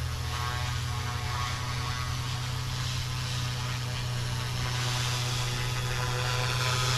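FW200 electric RC helicopter flying low, its direct-drive motor and rotor blades giving a steady hum and whine that grows a little louder toward the end as it comes closer.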